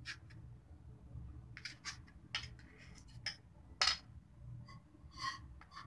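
Knife blade scraping and tapping on a stainless steel plate while cutting and lifting out pieces of barfi: a run of sharp clicks and scrapes, the loudest a little before the middle. Near the end comes a clink that rings briefly with a metallic tone.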